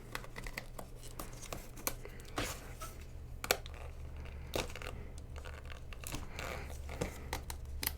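Plastic retail packaging being torn and crinkled open by hand, in scattered sharp crackles and snaps over a low steady hum.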